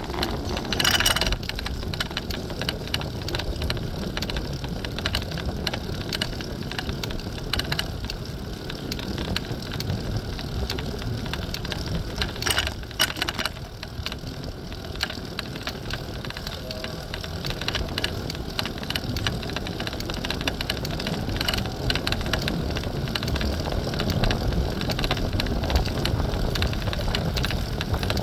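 Riding a city-share bicycle: steady wind rumble on the phone's microphone, with scattered rattles and knocks from the bike over bumps, a cluster about a second in and another about halfway through.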